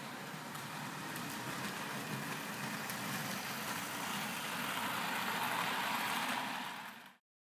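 1960s VB HO-scale model train, an electric locomotive pulling coaches, running on sectional track with the steady sound of wheels rolling on the rails. It grows louder as the train passes close by, then cuts off abruptly near the end.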